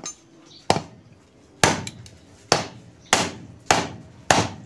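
Seven sharp metal-on-metal blows, each ringing briefly, coming closer together toward the end: a tool being struck against the steel housing of a Hanabishi spin dryer motor to knock out the rivets that hold it together.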